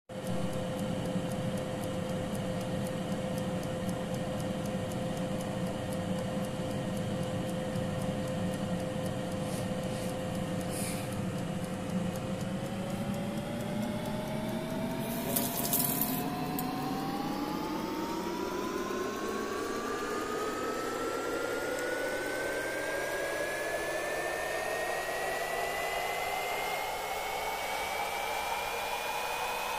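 Air fryer fan and heater running with a steady whir; its whine holds one pitch for a while, then rises steadily through the second half. A couple of brief rustling clicks in the middle.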